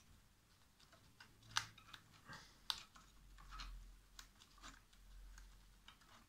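Faint handling sounds: scattered small clicks and taps as fingers and a slim metal tool press a taped paper shim into the upper arm of an Einhell TC-SS 405E scroll saw, with two sharper clicks about one and a half and two and a half seconds in. The saw is not running.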